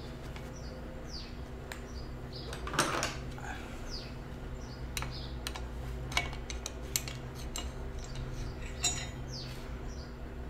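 Light metal clinks and taps of a bicycle's one-piece crank being taken apart, as the washer and bearing parts are worked off the threaded axle; about a dozen separate clinks, the loudest about three seconds in.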